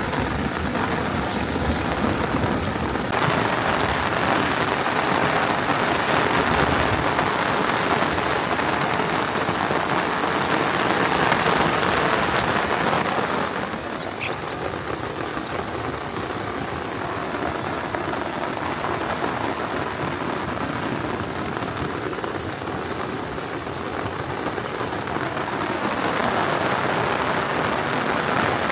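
Heavy rain falling steadily, heavier through the first half, easing a little about midway and building again near the end.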